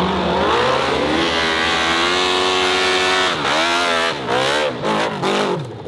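Hill-climb dirt bike engine at full throttle as it climbs a steep dirt slope. The revs rise over the first second and hold high and steady, then rise and fall rapidly several times from about three seconds in.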